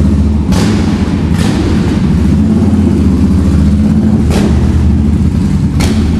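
Yamaha V Star 1300's V-twin engine running at low speed, echoing in a concrete car park, with four short sharp knocks or clicks over the engine note.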